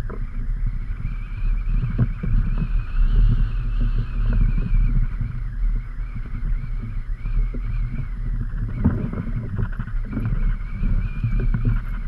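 Strong wind of around 20 knots buffeting the microphone as a steady heavy rumble, with choppy water slapping against a kayak's hull. A few sharp knocks come through about two seconds in and again near the nine- and ten-second marks.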